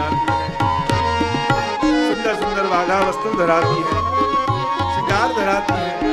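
Indian devotional music: tabla keeping a steady rhythm under a held, gliding melody.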